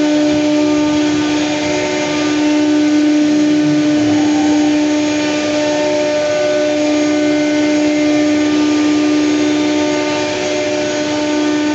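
CNC router machines running, a steady machine hum with a constant whining tone over a dense hiss.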